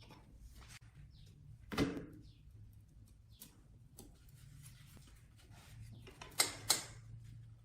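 Handling knocks and clicks: a dull knock about two seconds in and two sharp clicks in quick succession near the end, over a faint low hum.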